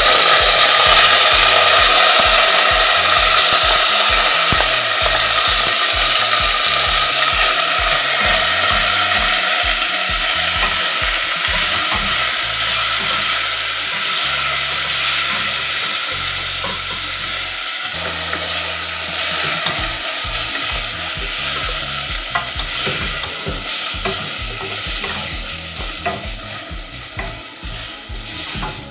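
Pieces of beef sizzling in a little hot oil in a stainless steel pot, stirred with a wooden spoon that scrapes the pan. The sizzle is loudest as the meat goes in and slowly dies down.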